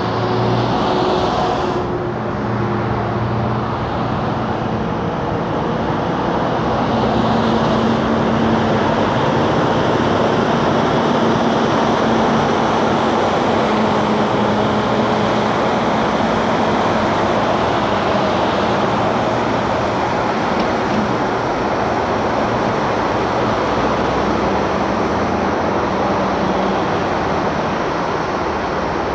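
Continuous road traffic noise from a busy multi-lane highway, cars and trucks passing steadily. Under it runs the low, steady hum of a heavy diesel truck's engine, strongest in the middle and fading near the end.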